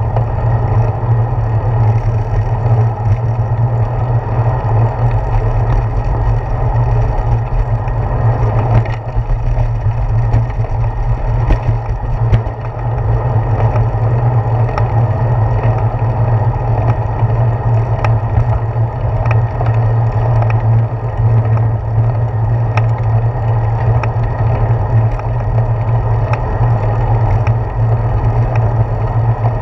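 Bicycle rolling along a paved path heard through a handlebar-mounted GoPro Hero 4: a steady, loud low rumble of wind and road vibration, with occasional light clicks and rattles from bumps.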